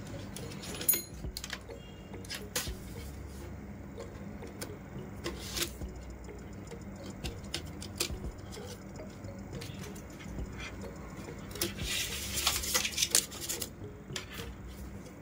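Plastic PE rattan strands being woven by hand, with scattered light clicks and ticks and a denser stretch of scraping and rustling about twelve seconds in.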